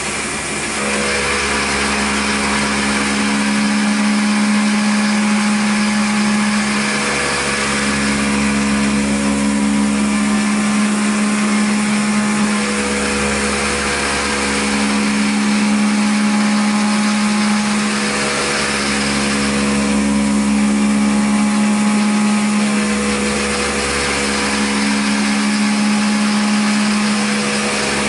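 CNC milling machine cutting a metal plate with an end mill under flood coolant: a steady pitched cutting whine that shifts and briefly dips every five to six seconds as the tool moves through its passes, over the hiss of the coolant spray.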